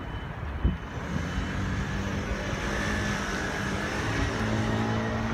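Street traffic: a motor vehicle's engine running with a low steady hum, and a single thump under a second in.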